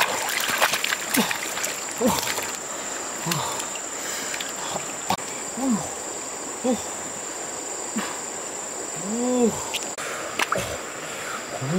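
Shallow stream water splashing and sloshing as a large fish is grabbed and wrestled by hand, over a steady high insect drone. Several short low sounds that rise and fall in pitch come through at intervals, the longest a little past halfway.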